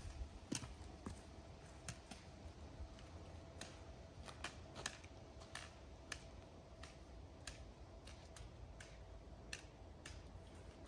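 Trekking-pole tips clicking on a gravel dirt trail, with sharp, irregular clicks at about one or two a second over a faint low rumble.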